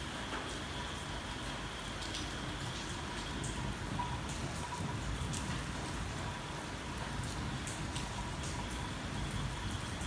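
Rain falling on a car's roof and windscreen, heard from inside the car: a steady hiss with individual drops ticking.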